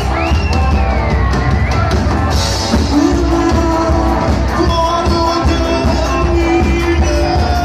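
Live rock band playing loudly: electric guitar and drum kit with a singer on the microphone, long held notes coming in about three seconds in.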